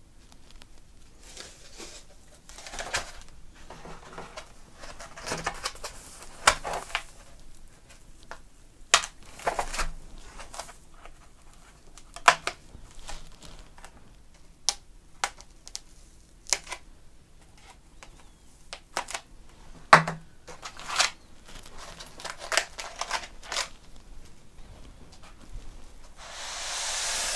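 A motherboard and its black foam packing being handled: foam rubbing and rustling, with scattered light clicks and taps as the board and foam touch the desk. Near the end, a steadier rushing noise lasts about a second and a half.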